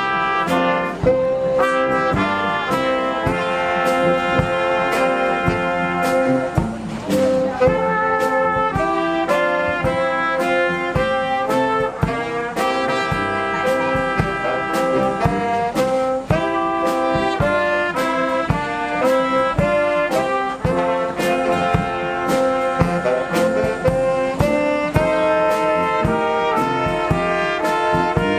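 Brass band music: trumpets and trombones playing a melody and chords together over a steady beat.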